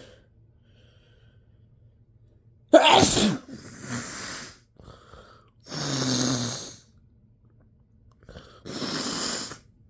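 A loud spray sneeze bursts out suddenly about three seconds in, induced by a turmeric-dusted cotton swab in the nose. It is followed by breathy exhales, a short voiced breath and another breathy burst near the end.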